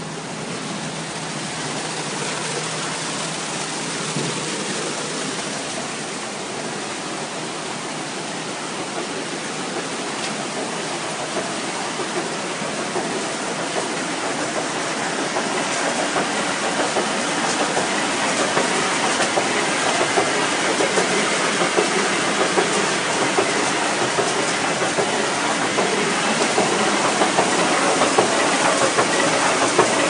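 Alluvial gold washing plant running: a steady hissing rush of machinery and wash water with a fine rattle, growing louder from about halfway through.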